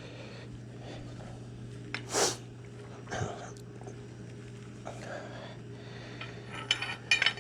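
Light handling of metal conduit and a conduit bender: a few sharp clicks and knocks near the end. A short breathy noise comes about two seconds in, all over a steady low hum.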